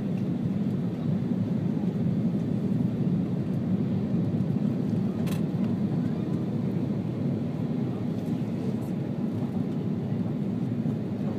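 Steady low rumble of airflow and engines inside the cabin of an Airbus A330-200 descending on approach. A single brief click comes about five seconds in, as the wing flaps start to extend.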